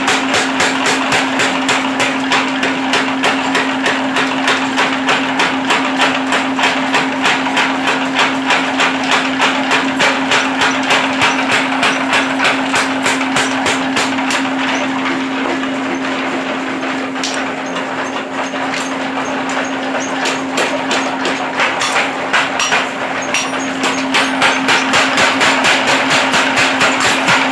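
Mechanical forging power hammer striking in fast, even blows over a steady motor hum. The blows soften in the middle and grow louder again near the end.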